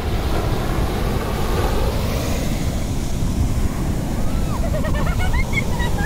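Ocean surf breaking and washing up a sandy beach, with wind buffeting the microphone. A few faint, short high-pitched sounds come near the end.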